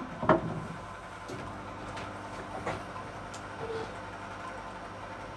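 A steady hum from a running kitchen appliance, with a sharp knock on a wooden chopping board just after the start and a softer knock about two and a half seconds later.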